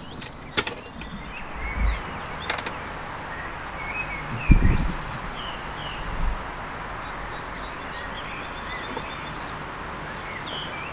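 A wooden beehive being opened: sharp wooden knocks as the lid comes off, and a dull thump about four and a half seconds in. Birds chirp in the background.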